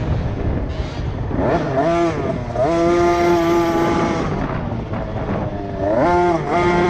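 A 50cc two-stroke kids' motocross bike engine revving hard. Its pitch climbs about two seconds in, holds high for over a second, falls, then climbs again near the end, over a steady low rumble.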